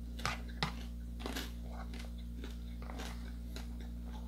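A person eating: chewing, with a few short clicks in the first second and a half from a fork working food in a plastic bowl, over a steady low hum.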